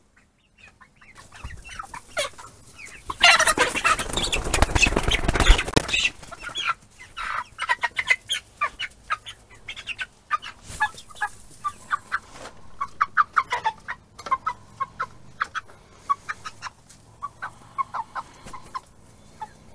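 A flock of young American Bresse chickens clucking and calling in short, scattered notes. About three seconds in comes a loud flurry of squawking and commotion lasting about three seconds, as one of the birds is caught.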